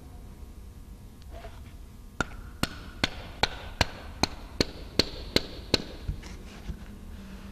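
A white mallet tapping the supplement valve back into the steel lower valve of an Anyang power hammer. About two seconds in come about ten quick, even strikes, roughly three a second, each with a short metallic ring, then a few fainter taps.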